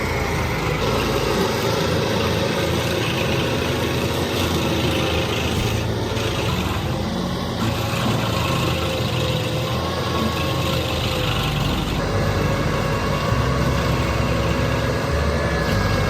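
A stump grinder's engine running steadily, with a few abrupt shifts in its sound.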